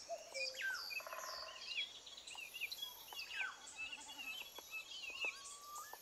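Quiet birdsong from several birds: many short chirps and whistled notes rising and falling in pitch, with a few brief buzzy trills mixed in.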